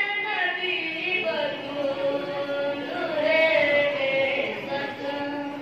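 A boy chanting a devotional qasida solo into a microphone, holding several long notes that slide slowly from one pitch to the next.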